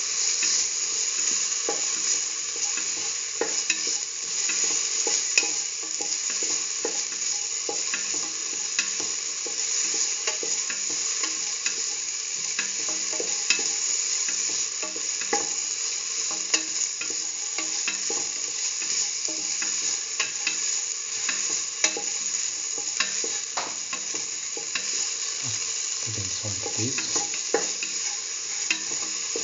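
Chopped onion, garlic and tomato sizzling in oil in a stainless steel pan, stirred now and then, with scattered clicks and scrapes of the utensil against the metal over a steady frying hiss.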